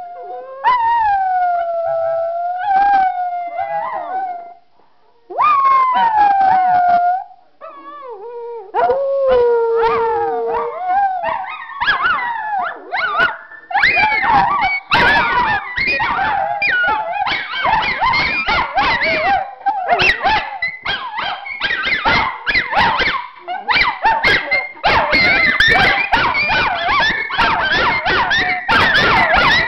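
Three miniature schnauzers howling. First come single long howls that glide up and down with short breaks between them. Then several dogs join in, with overlapping howls and short broken calls that grow denser toward the end.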